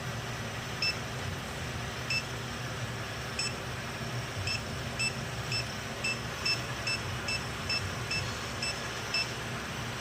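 Electronic refrigerant leak detector beeping over a steady low hum: short high beeps about once a second at first, quickening to about two a second around halfway through, then stopping shortly before the end. A quickening beep rate is how such a detector signals that it is picking up refrigerant.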